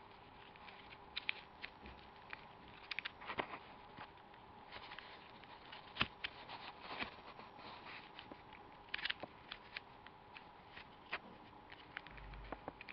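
Plastic pieces of a custom Rubik's-type puzzle cube clicking as it is twisted by hand, in irregular quick clicks and short clusters, over a faint steady hum.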